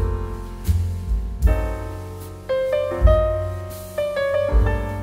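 Slow, relaxing instrumental background music: melody notes over deep bass notes that ring out and fade.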